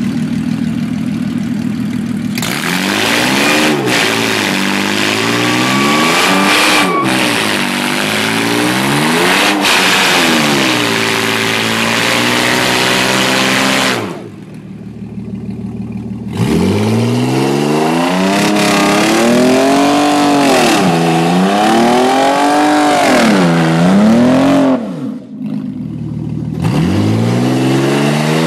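Twin-engine VW Passat revving hard in repeated rising and falling sweeps while its wheels spin on wet pavement in a burnout, tyre noise under the engine. The sound breaks off briefly twice and picks up again with a fresh rev.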